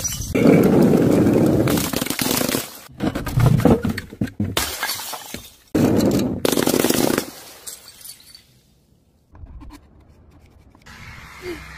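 Glass jars and bottles smashing on paving tiles: three loud crashes of breaking glass over the first seven seconds, with sharp impacts among them, after which it goes much quieter.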